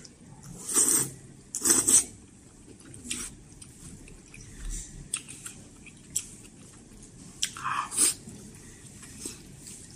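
A person slurping up malatang noodles and chewing with wet mouth sounds. There are two loud slurps about one and two seconds in, softer smacks and chews after them, and another loud slurp about eight seconds in.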